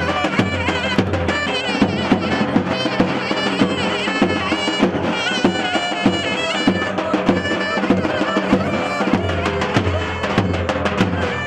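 Halay dance music: a zurna plays a wavering, ornamented melody over a steady davul drum beat.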